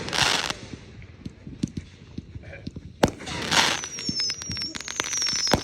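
Consumer fireworks going off: a short hiss, then a sharp bang about three seconds in followed by a hissing burst and scattered crackling pops. Several high whistles fall slowly in pitch in the second half, and there is another bang near the end.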